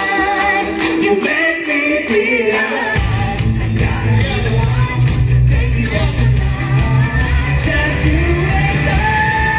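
Live rock band music with a singer's vocals. The heavy bass comes in about three seconds in.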